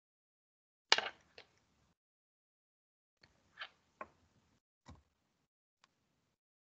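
A handful of short clicks and knocks from a computer mouse and keyboard, the loudest a knock about a second in, with quiet between.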